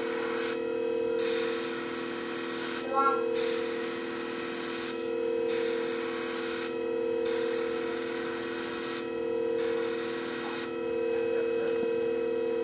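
Scissor blade edge held against the spinning abrasive disc of a flat hone sharpening machine: a hissing rasp in repeated passes of a second or a few seconds with short breaks, over the machine's steady motor hum.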